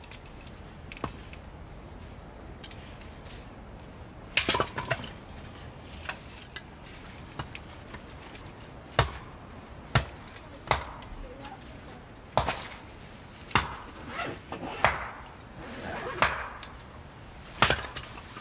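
Hatchet chopping and splitting firewood into kindling on a chopping log: about a dozen sharp wooden strikes at irregular spacing, the first about four seconds in, then roughly one every second or so.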